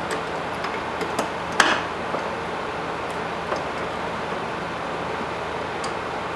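A few scattered light metallic clicks and knocks from a hand tool and parts at the new fuel filter's mounting as it is tightened, the loudest about a second and a half in, over a steady background hiss.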